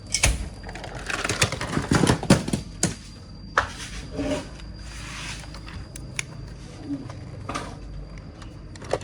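Hard plastic parts of a Transformers action figure clicking, knocking and rattling as they are handled, in a dense cluster of sharp clicks over the first three seconds, then single clicks now and then.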